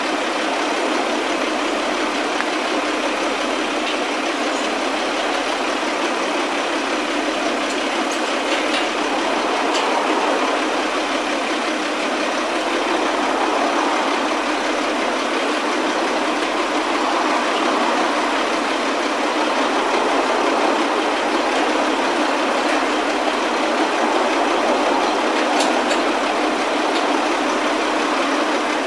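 Heavy construction machinery engine, from the crane or the boom lift, running steadily with a slight swell and fall, with a few faint clicks.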